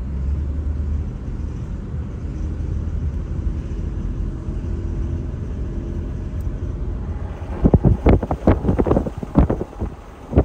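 A steady low rumble, then from about three-quarters of the way through, irregular gusts of wind buffeting the microphone.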